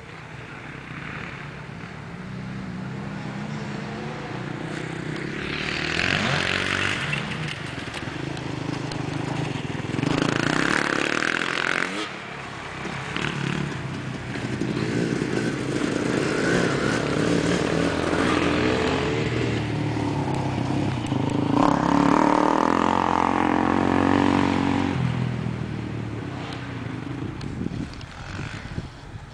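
Enduro motorcycle engines revving up and down as the bikes ride past, the pitch rising and falling with throttle and gear changes. The sound swells several times, is loudest in the second half and fades near the end.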